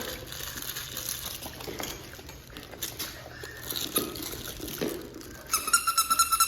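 Soft rustling and small knocks of puppies playing with toys. A little over five seconds in, a high, steady-pitched tone starts up, pulsing about five times a second.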